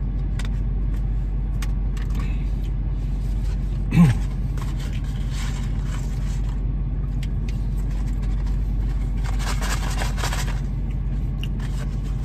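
Steady low hum of a car idling, heard from inside its cabin, under the small clicks of someone eating fries. About four seconds in comes one short low sound that falls in pitch, and near ten seconds a brief rustle.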